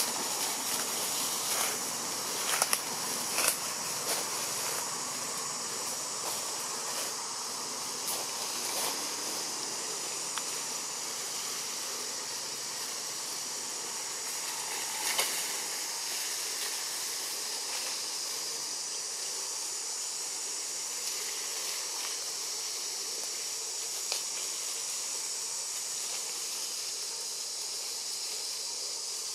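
Forest ambience dominated by a steady, high-pitched insect drone. A few sharp clicks and rustles come in the first four seconds, with another brief one about fifteen seconds in.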